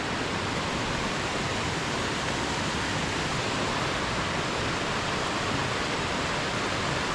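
Steady rush of a waterfall and rain-swollen mountain stream: an even, unbroken hiss of falling water.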